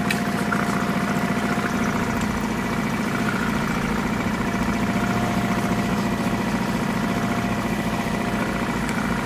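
Boat's outboard motor running steadily at low throttle.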